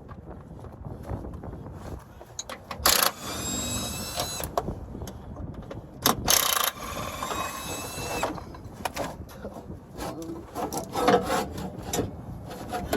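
Cordless power tool, likely an impact wrench, running on bolts twice, each run lasting a second or two and starting with a loud burst, followed by metal clanks and knocks from tools and parts.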